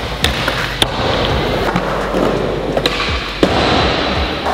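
Skateboard wheels rolling on a smooth wooden skatepark floor, with sharp clacks of the board popping and landing a trick; the loudest clack comes about three and a half seconds in.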